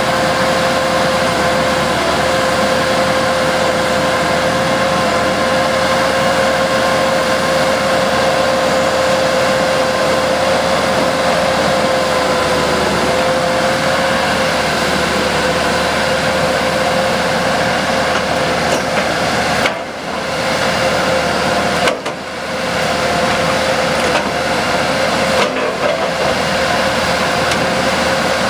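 Knox Kershaw KTC1200 tie crane running steadily while it works its boom and grapple, a constant engine hum with a steady whining tone over it. The sound dips briefly three times in the last third.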